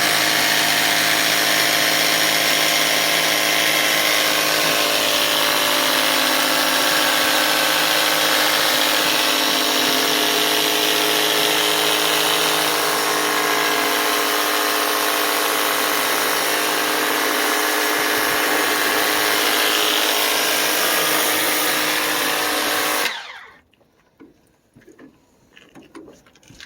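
Kobalt 40-volt handheld power cleaner running steadily, its battery-powered pump motor humming under the hiss of water spraying through the 40-degree nozzle; it shuts off suddenly about 23 seconds in.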